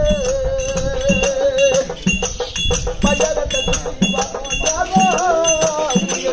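Therukoothu folk music: a melody held on one note for the first two seconds and then moving, over regular drum strokes about twice a second. Throughout runs the jingle of the dancers' ankle bells.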